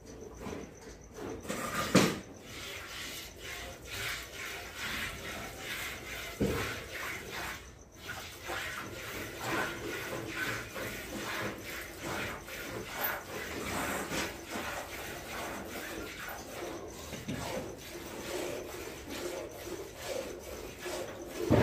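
Hand-milking a water buffalo into a steel bucket: a steady rhythm of milk squirts splashing into the pail. About two seconds in there is one sharp knock.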